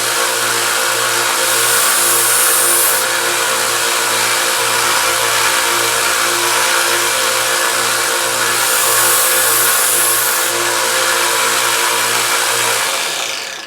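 Harbor Freight 1x30 belt sander running with a 150-grit belt while a steel kitchen knife blade is ground on it. The high grinding hiss swells twice as the blade is passed over the belt. Near the end the motor is switched off and winds down.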